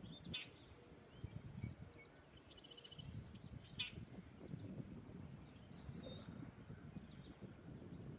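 Faint birdsong, several short chirps and trills, over a low wind rumble. Two sharp clicks stand out, one right at the start and one about four seconds in.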